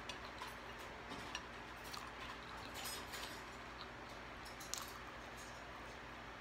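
Someone eating French fries by hand: faint, scattered clicks and taps of long fingernails and fingers against a plate, the sharpest click about three-quarters of the way through.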